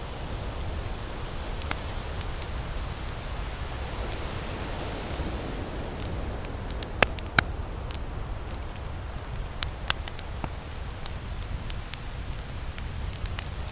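Campfire crackling and popping in sharp, irregular snaps, the two loudest close together about seven seconds in, over a steady low rush.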